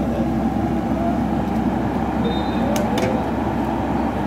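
Komatsu hydraulic excavator's diesel engine running steadily under load as it lifts a mud-bogged off-road buggy on a strap.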